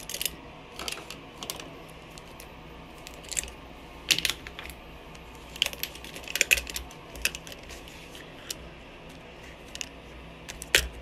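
Makeup items (lipstick tubes, brushes, small pots) clicking and rattling against each other and the counter as they are handled and packed into a zippered cosmetic bag. Scattered light clicks come irregularly, one every second or two.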